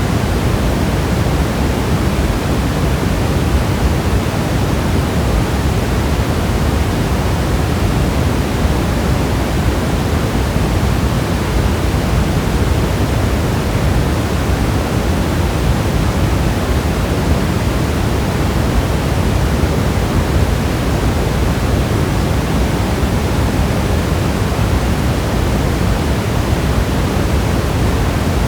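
Steady rain: a dense, even hiss of falling rain with no single drops, gusts or thunder standing out, heavier in the low range.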